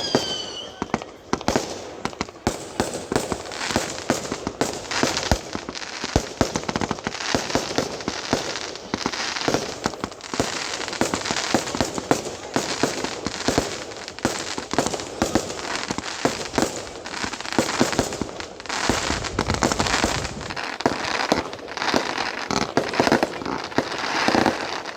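Fireworks going off in a dense, continuous run of crackling bangs and pops.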